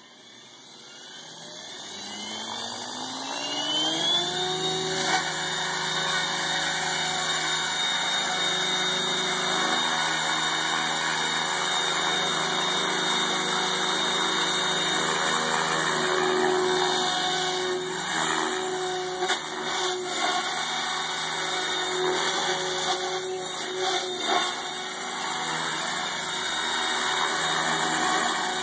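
MSH Protos 500 electric RC helicopter spooling up. The motor and gear whine rises in pitch and level over the first four seconds as the rotor comes up to speed, then holds steady with rotor blade noise while the helicopter lifts off and hovers low.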